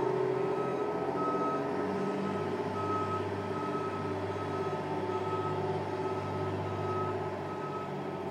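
Fire engine's backup alarm beeping about once a second as the truck reverses, over the steady drone of its diesel engine.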